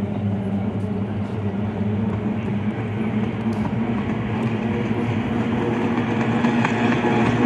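Boat-racing hydroplanes' two-stroke outboard engines droning as the pack approaches, steadily growing louder.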